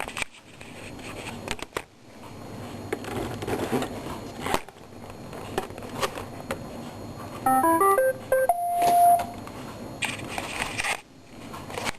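An iRobot Roomba 530 being handled, with plastic clicks and rustling. About two-thirds of the way in, it plays a quick rising run of electronic beeps ending on one held note, the loudest sound here.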